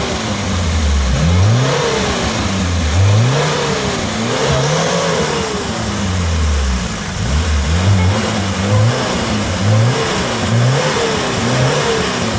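Lada Niva's engine revved hard over and over, its pitch rising and dropping back roughly once a second, as the stuck 4x4 spins its wheels in a rocky creek bed, with the hiss of splashing water underneath.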